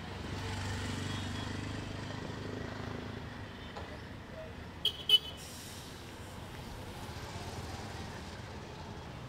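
Street traffic: a vehicle passes close by with a low rumble in the first few seconds, and a horn gives two short, high toots about five seconds in.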